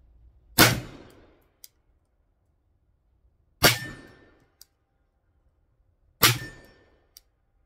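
Three shots from a Belgian 11 mm pinfire revolver firing homemade pinfire cartridges, about three seconds apart, each with a short ringing tail. A faint click follows about a second after each shot.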